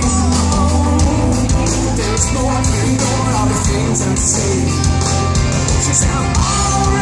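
Live rock band with a singer, played through a large stage PA and heard from within the crowd: electric guitars, bass and drums under a sung vocal line.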